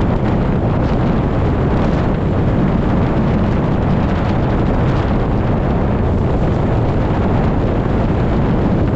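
Steady rush of wind buffeting a car-mounted camera's microphone at highway speed, mixed with road noise, a deep, even rumble with no change through the stretch.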